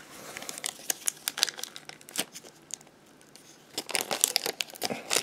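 Clear plastic wrapping crinkling and rustling as hands peel it off a PVC figure: scattered crackles, sparse and quiet in the middle, then denser and louder near the end.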